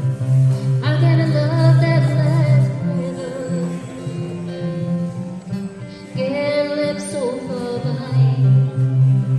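Live folk song: acoustic guitar accompanying singing, with two sung phrases, the first about a second in and the second about six seconds in.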